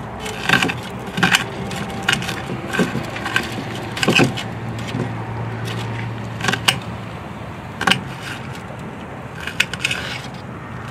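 Knife chopping an onion on a plate: irregular sharp clicks as the blade strikes the plate through the onion. A low steady hum comes in for a couple of seconds midway.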